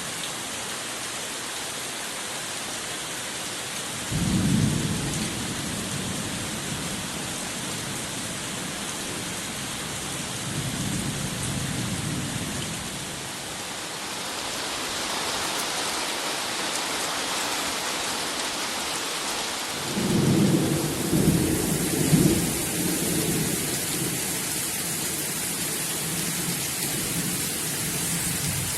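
Steady rain falling in a summer shower, with thunder rumbling twice: once about four seconds in and again, louder and longer, about twenty seconds in.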